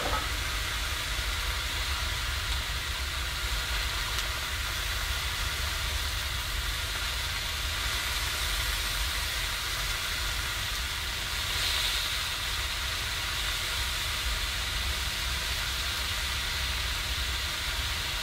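Steady sizzle of butter and food frying in a pan on a woodstove, over a steady low rumble.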